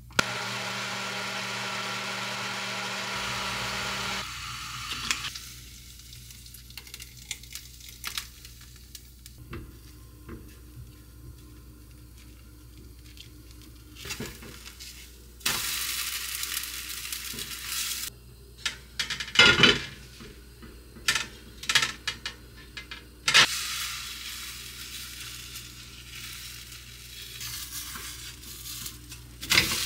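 Countertop blender running steadily for about four seconds, then stopping. Thin green vegetable batter then cooks in a nonstick frying pan, sizzling in spells, with a spatula scraping and knocking against the pan as the tortilla is flipped and tears.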